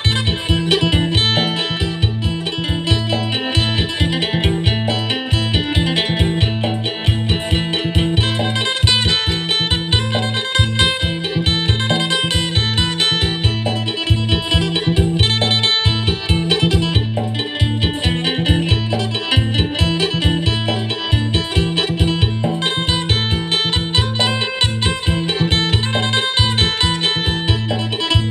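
Acoustic phin, the Thai-Lao plucked lute, playing a fast, bright, densely picked sing-style melody over steady bass notes and an even beat.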